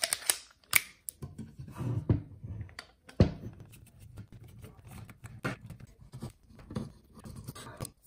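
Screwdriver turning out the mounting screws that hold a Blue Yeti USB microphone in its stand, with handling of the metal mic and stand: irregular clicks and scrapes, with a few sharper knocks near the start and about three seconds in.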